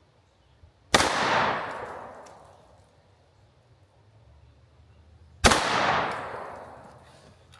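Two 9mm pistol shots from a Sig P365 X Macro, about four and a half seconds apart, each followed by an echo that dies away over about two seconds.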